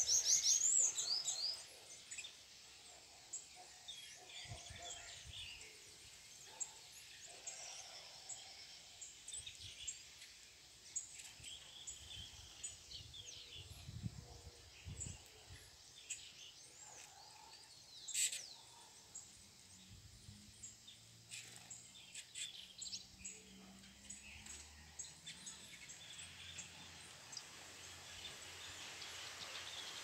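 Small songbirds chirping: a loud burst of quick high chirps in the first second or so, then scattered softer chirps and calls.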